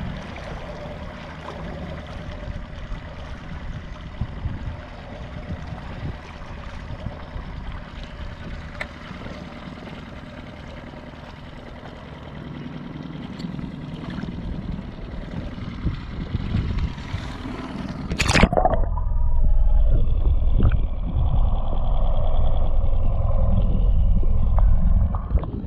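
Water washing and lapping along an inflatable dinghy as it moves across light chop. About 18 seconds in a sharp splash, then the sound turns into a louder, muffled underwater rumble as the microphone goes below the surface.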